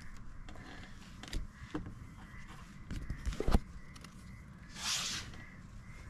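Quiet handling during a card game: a few light taps and knocks, a cluster of them in the middle with the loudest about three and a half seconds in, then a short rustling swish about five seconds in.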